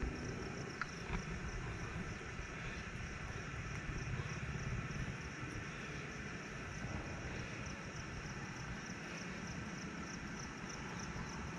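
Pine-forest ambience: a steady low rumble on the microphone under a high, evenly pulsing chirring of insects.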